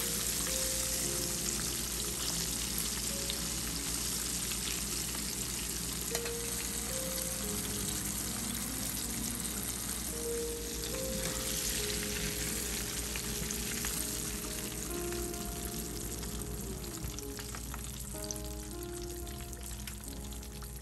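Batter-coated chicken pieces deep-frying in a pan of hot oil: a dense, steady sizzle and crackle of bubbling oil.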